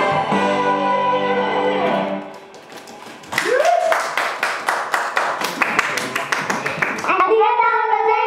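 A sung pop song with its backing music ends about two seconds in, then audience clapping, and near the end girls' voices speak into microphones over the last of the clapping.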